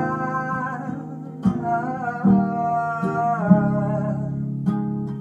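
Acoustic guitar strummed in chords, with a man singing long, drawn-out notes over it.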